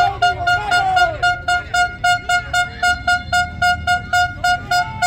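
A horn tooting in rapid, even pulses, about four a second, all at one steady pitch, with faint voices behind it.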